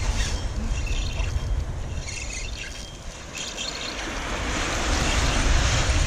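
Surf washing up on a sandy shore, swelling louder over the last two seconds, over a steady low rumble.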